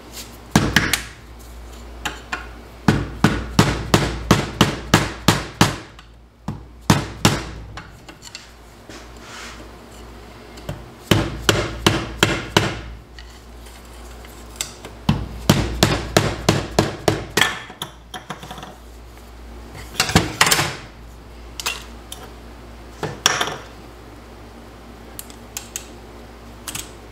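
Mallet tapping a screwdriver against a TH350 automatic transmission case to work the governor loose: runs of quick knocks, about four a second, broken by pauses and a few single blows.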